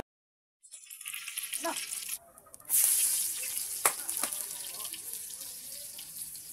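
Garlic frying in hot oil in a wok: a loud sizzle sets in about three seconds in, with a couple of sharp pops from spattering oil, then slowly dies down as the oil settles around the garlic.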